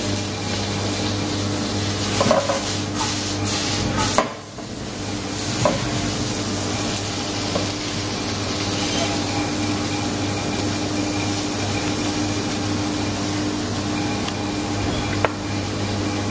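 Steady sizzling of oil in a frying pan over a low, even hum, with a few light clicks and knocks of utensils on the board.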